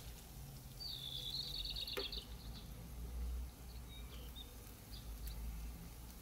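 Faint steady sizzle of paneer koftas deep-frying in hot oil. A short high chirping trill comes about a second in, followed by a single sharp click at about two seconds.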